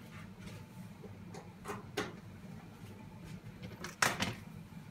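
Light knocks and clicks of things being handled in a kitchen, the loudest about four seconds in, over a low steady hum.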